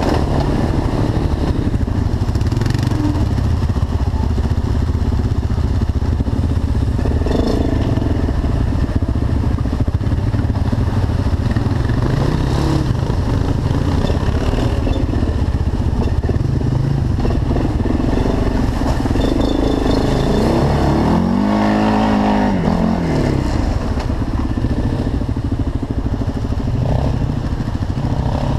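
TGB 425 quad's single-cylinder four-stroke engine running as it is ridden, revs rising and falling with the throttle, with one sharp rev up and back down about three-quarters of the way through.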